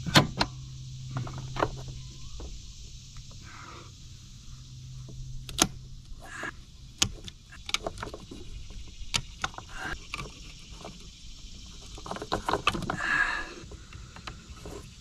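Scattered clicks, taps and knocks of hand tools and rubber coolant hoses being handled and clamped in a truck's engine bay, with a rustling scrape near the end. A low steady hum stops about six seconds in.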